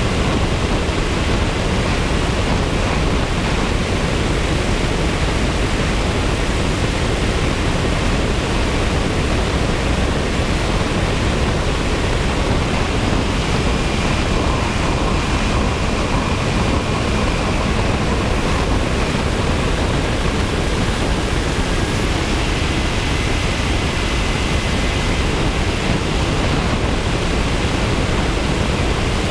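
Onboard sound of a radio-controlled model jet in flight: a steady rush of wind over the camera, with a thin high-pitched motor whine that climbs in pitch about halfway through, drops a few seconds later and climbs again as the throttle changes.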